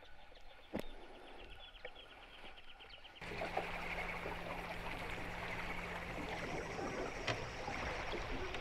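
Quiet outdoor ambience with a rapid series of high ticks, then an abrupt change about three seconds in to louder rushing wind and river-water noise on a boat, with a low steady hum for the next few seconds.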